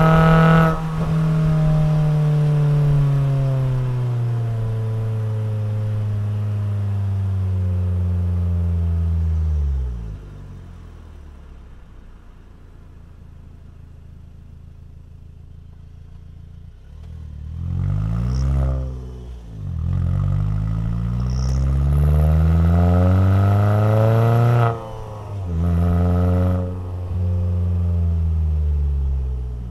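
Alfa Romeo 147 Twin Spark four-cylinder engine through a FORCE-G aftermarket sport exhaust, heard while driving. The revs fall steadily for about ten seconds and the engine settles to a quiet low drone for several seconds. It then picks up again with a short blip and a series of rising accelerations, each cut off abruptly as the throttle is lifted.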